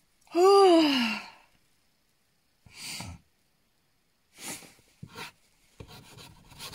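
A woman's long groaning "Oh" that falls in pitch, from the cold, followed by two short breaths and then soft fabric rustling near the end as she moves in her sleeping bag.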